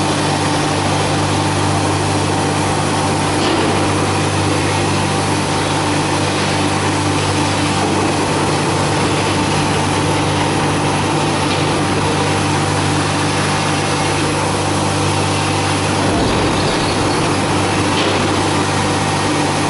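Steady machine hum and whine from a powered CNC router, with a brief deeper rumble near the end.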